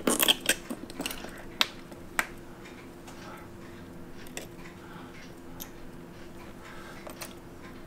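Small sharp metallic clicks of tweezers and watch parts as the winding stem is released and pulled out of a quartz chronograph movement: a quick cluster at the start, a few single clicks over the next two seconds, then a few faint ticks, over a faint steady hum.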